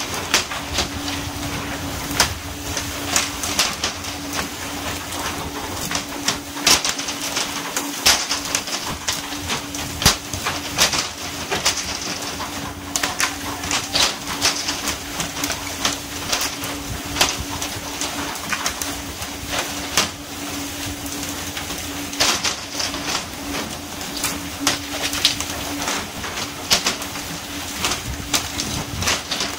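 Fish thudding and slapping onto the deck at irregular intervals as pole-and-line fishermen swing them aboard, with the crack and rattle of poles, over a steady engine hum and the hiss of water spray.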